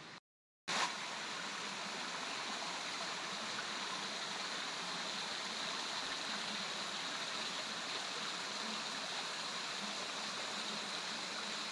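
Small waterfall: thin streams of water falling and dripping off a layered rock ledge onto the rocks below, a steady rushing splash that starts about half a second in after a brief dropout.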